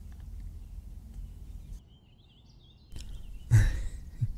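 Low steady outdoor background ambience with faint bird chirps, then a loud breathy sigh about three and a half seconds in.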